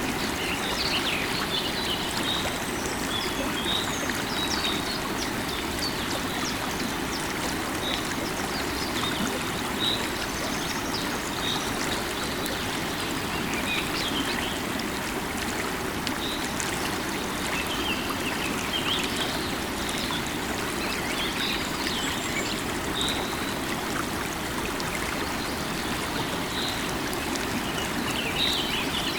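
A river of running water flowing steadily, with birds singing over it: short high chirps every second or two and scattered trills.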